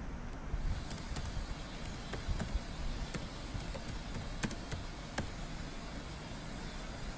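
Computer keyboard keys clicking in an irregular series of separate keystrokes as a short line of text is typed, over a steady low background noise.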